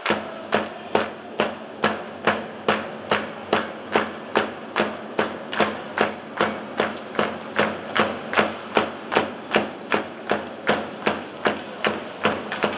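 Steady rhythmic beating in the stands, a little over two even beats a second, typical of a fan's drum keeping time.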